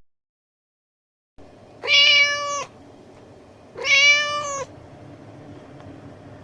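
A domestic cat meowing twice, two clear, level-pitched meows of under a second each, about two seconds apart, over a faint background hiss.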